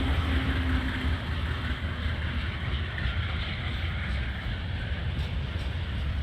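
Freight train with grain hopper wagons running past, a steady low rumble.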